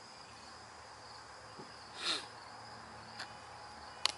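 Steady high-pitched insect chorus, crickets, trilling without a break. About two seconds in there is a short, louder whoosh, and there are a couple of faint clicks near the end.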